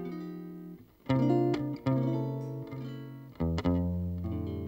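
Solo guitar playing a slow chordal introduction: plucked chords ring out and die away, with fresh chords struck about a second in, near two seconds and twice around three and a half seconds.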